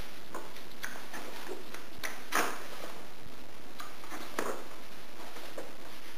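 Pages of a book being handled and turned: irregular light clicks and short paper rustles, the loudest about two and a half seconds in and again a couple of seconds later.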